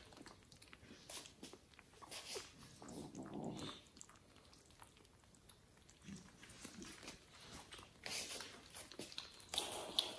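Kittens pawing and biting at a fabric gift bag and small gnome toy hanging on a pen: soft rustling, scratching and small clicks, louder in a couple of bursts near the end.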